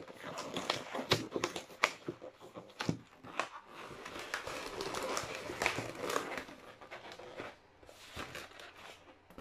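Inflated latex modelling balloon being handled and twisted in the hands, the rubber squeaking and rubbing with many short sharp squeaks. It goes quieter about three quarters of the way through.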